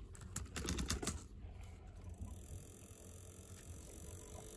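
A quick run of key clicks on a ThinkPad T60 laptop keyboard in the first second or so, then a faint steady hum.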